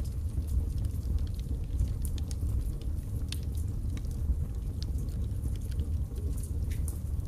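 Birch logs burning in a fireplace: a steady low rumble from the fire with irregular sharp crackles and pops from the wood.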